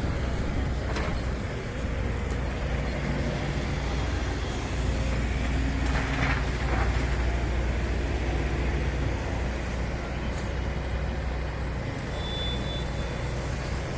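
A heavy vehicle's engine running steadily with a low hum, among street traffic noise, with a brief hiss about six seconds in and a short high tone near the end.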